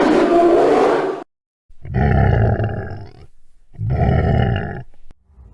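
Roaring sound effects: one roar, then the same roar repeated twice about two seconds apart.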